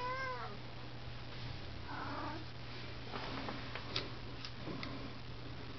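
A cat gives one short meow that rises and falls in pitch at the start, followed a few seconds later by a few faint light clicks.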